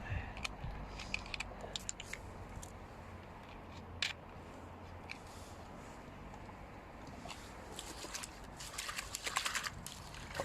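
Small scattered clicks and taps of hands handling vegetables and cooking gear during food preparation, with a burst of quick, crackly rustling near the end.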